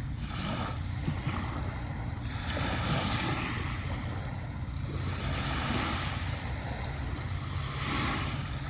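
Small sea waves breaking and washing up a sandy beach, surging about four times, over a steady low rumble.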